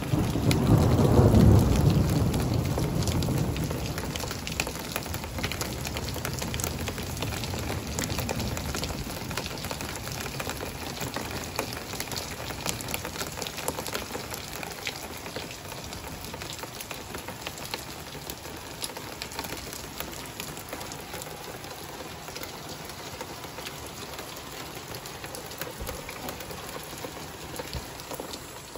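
Thunder rumbling from a lightning bolt, loudest a second or two in and fading over about eight seconds, over steady heavy rain.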